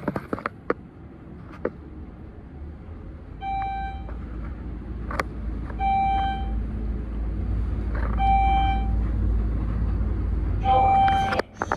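Scenic elevator car travelling with a low rumble, its floor-passing chime sounding four times, a short single tone about every two and a half seconds as it passes each floor.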